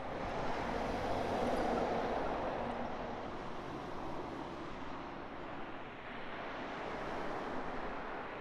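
Steady outdoor rumble and hiss of passing vehicle traffic, loudest about a second or two in, then easing off.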